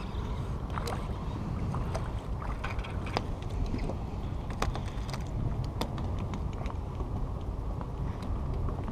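Steady low rumble of wind on the microphone, with a few sharp clicks and knocks scattered through.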